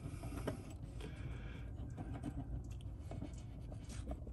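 Faint handling noise from fingers working a small metal retaining clip onto a window hinge stud: scattered light clicks and rubbing.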